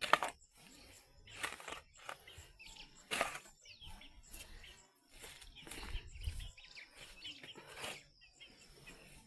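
Birds chirping in the background, with irregular short knocks or scrapes every second or two, the sharpest just at the start.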